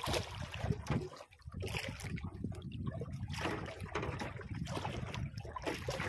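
Sea water slapping and sloshing against the hull of a small boat in irregular splashes, over a steady low rumble.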